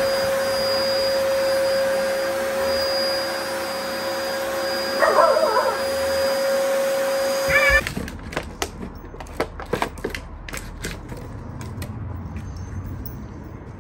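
Upright vacuum cleaner running with a steady whine, with a brief wavering call over it about five seconds in and again just before the motor sound cuts off abruptly at about eight seconds. After that, quieter scattered clicks and taps.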